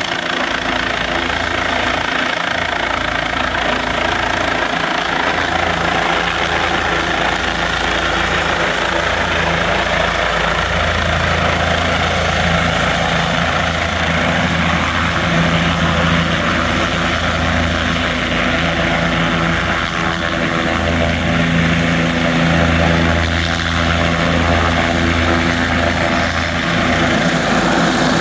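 Air ambulance helicopter approaching and descending to land, its rotor and engine running steadily throughout, the low hum growing stronger about ten seconds in as it comes lower and nearer.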